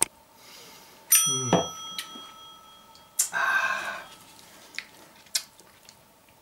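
Subscribe-button animation sound effect: a click, then a bright bell-like chime about a second in that rings on for about two seconds. A short noisy rustle follows around three seconds in.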